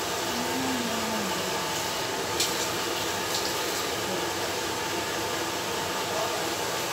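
Water running steadily from a shampoo-basin spray nozzle over hair as bleach is rinsed out.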